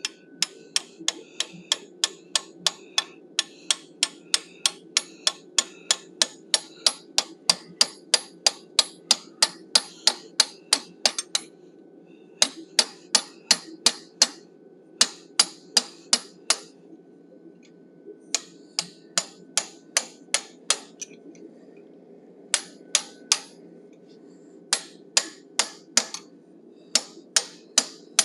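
Hand hammer driving a chisel into red-hot forged steel, light sharp metallic strikes about three a second in runs of a few seconds, with short pauses between runs. A steady low hum runs underneath.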